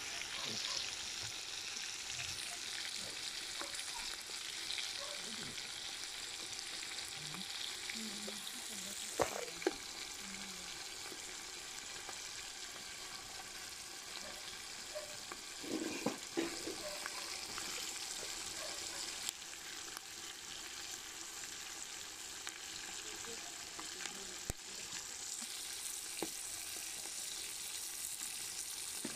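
Pork fat slices sizzling steadily in hot rendered fat in a cast-iron cauldron over a wood fire, with a few sharp pops, twice in quick pairs around the middle.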